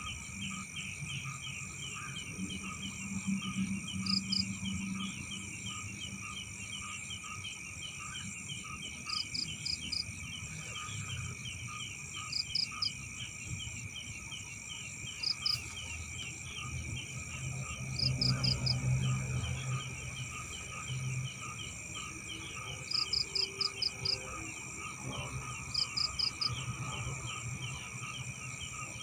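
Night chorus of crickets and other insects: a fast, steady chirping with a continuous high buzz behind it, and short groups of three to five higher chirps every few seconds. A low rumble rises and falls beneath it, loudest around the middle.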